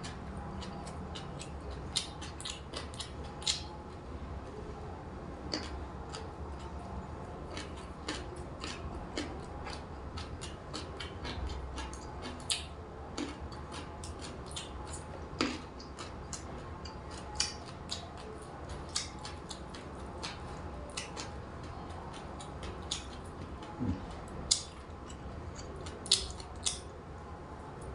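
Someone eating: scattered, irregular sharp clicks and crunches of chewing and handling food, over a steady low hum.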